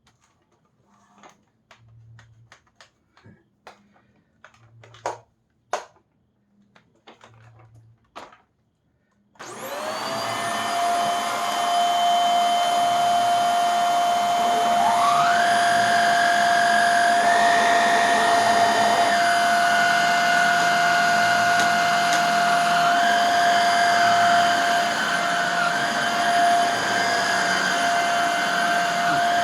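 A few scattered clicks and knocks, then, about nine seconds in, the Hoover Air Steerable upright vacuum is switched on for its test run after refurbishing. Its motor spins up and runs steadily with a strong high whine, and a second, higher tone rises and shifts partway through.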